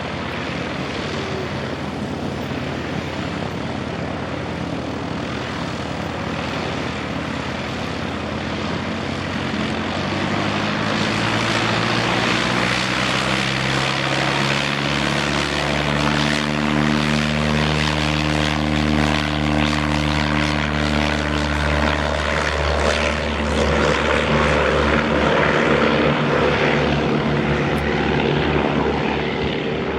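Propeller airplane's piston engine drone, growing louder about a third of the way in as the plane passes close, its pitch bending as it goes by.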